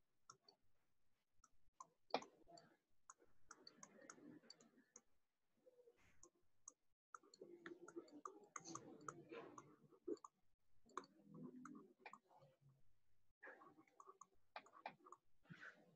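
Near silence with faint, irregular clicks and light scratching from a stylus writing on a pen tablet.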